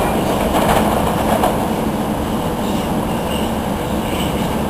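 LIRR M7 electric train running away down the track, its wheel and running noise a steady rumble that slowly fades.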